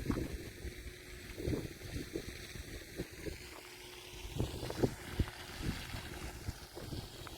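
Wind buffeting the microphone in uneven low rumbling gusts, with a few sharper knocks of handling.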